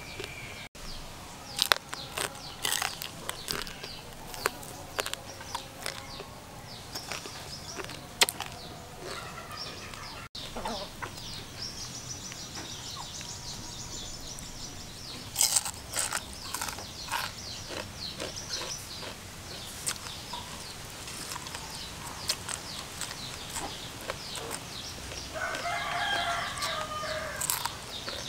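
Chickens clucking, with a rooster crowing for about two seconds near the end, among scattered sharp clicks.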